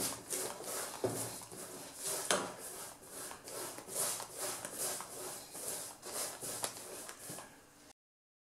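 Paint brush stroking back and forth across a corrugated iron sheet, its bristles scratching over the ridges in a steady run of about three strokes a second. It cuts off abruptly near the end.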